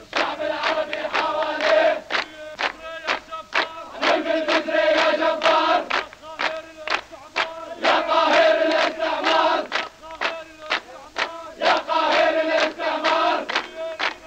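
A group of male soldiers singing a chanted song in praise of Nasser, clapping in time at about two and a half claps a second. The sung phrases come in loud surges about every four seconds.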